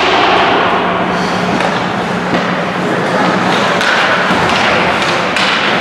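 Ice hockey game ambience in an indoor rink: skates scraping the ice and several sharp knocks of sticks, puck and boards. Spectators talk underneath, over a steady low hum.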